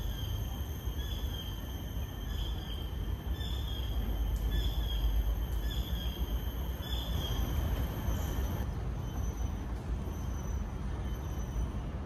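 Outdoor woodland ambience: a steady low rumble under a high-pitched call that repeats about every 0.7 s, stopping about two-thirds of the way through, followed by fainter, higher chirps.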